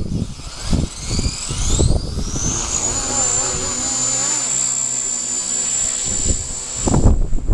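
Strong wind buffeting the microphone in low rumbling gusts. A high whine rises over the first couple of seconds and then holds steady through the middle, until the gusts return near the end.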